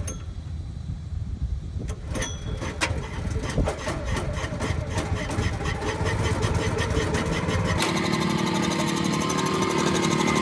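Walk-behind core aerator's small gas engine starting and running, a fast even ticking at first that settles into a steady running note about eight seconds in, with a few clicks early on.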